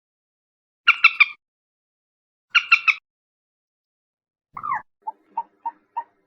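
Common moorhen calling: two quick bursts of three or four short notes, then a longer call about two-thirds of the way in, followed by a steady series of short clucking notes, about three a second.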